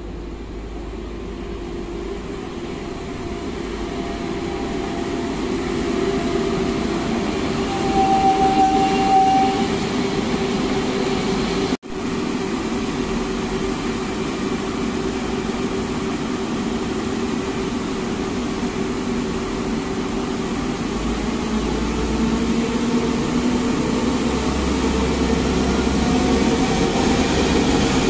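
Electric multiple unit 36WEhd-001 drawing into the station, its running noise and hum growing louder, with a brief high squeal about eight seconds in. After a sudden break, the train pulls away, its traction motors humming with a pitch that rises as it gathers speed.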